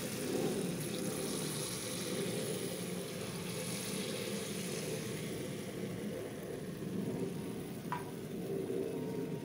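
Unniyappam batter sizzling as it is poured into hot oil in the cups of an appam pan, a steady frying hiss.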